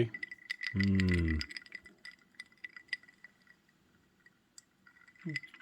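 Ice cubes tinkling in a glass of scotch on the rocks: a string of small clinks over a faint ringing of the glass, dying away after about four seconds. A short hummed voice sound comes about a second in.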